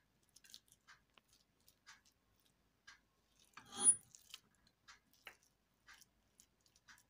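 Spoon scooping thick grainy porridge from a metal pot and putting it onto a plate: scattered small clicks and scrapes, with one louder scrape and squish about four seconds in.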